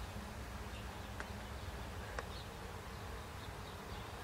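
A faint steady low hum, with a couple of light paper ticks from the brochure pages being handled.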